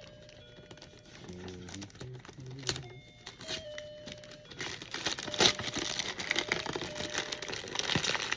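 Gift packaging crinkling and tearing as a present is unwrapped by hand, louder and busier in the second half.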